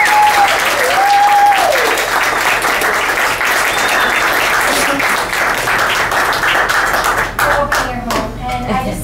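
Dinner guests clapping and cheering 'yay', with one voice holding a long 'yaaay' over the first two seconds. The applause thins to a few scattered claps near the end.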